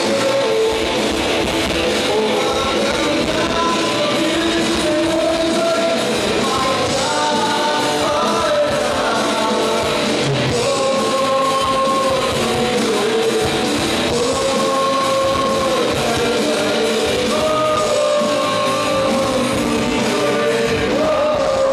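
Live rock band playing loudly: a male singer over electric guitars, bass and drums, with the vocal melody carried in held, wavering notes.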